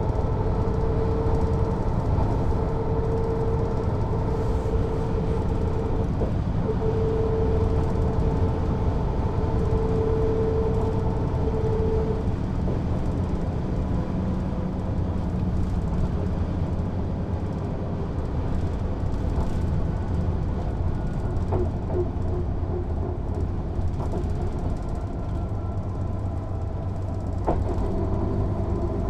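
Mercedes-Benz O 407 city bus heard from on board while driving: steady diesel and running noise with a whine that comes and goes in the first half. It quietens a little in the middle and picks up again near the end as the bus accelerates.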